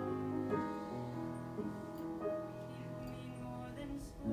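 Piano accompaniment for a musical number playing slow, held chords, softer than the singing around it.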